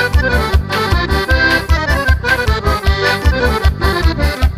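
Accordion playing a quick melody in a forró song's instrumental break, over a steady low drum beat.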